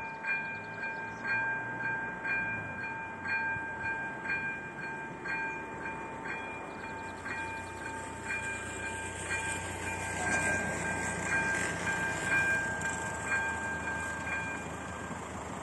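Level-crossing warning bell ringing in a steady pattern of about one stroke a second while the crossing's barriers lower, stopping about a second before the end. A rushing noise swells up a little past the middle.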